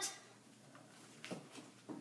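Quiet room with a few faint, brief knocks, about a second and a half in and again near the end.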